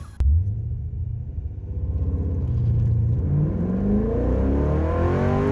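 Holden VZ SS ute's V8 engine starting up about a quarter of a second in and running with a low rumble, its engine speed climbing steadily through the second half.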